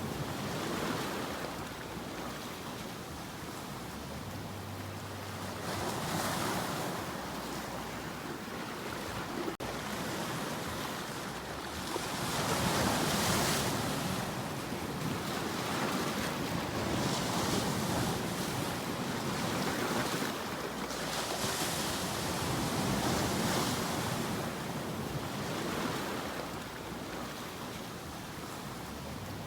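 Sea waves washing onto a rocky shore: a continuous surf wash that swells and eases every few seconds.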